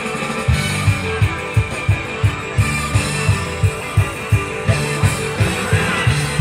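Up-tempo idol-pop backing track with rock guitar, played over outdoor PA speakers. A kick drum and bass come in about half a second in and keep a fast, steady beat of about three a second.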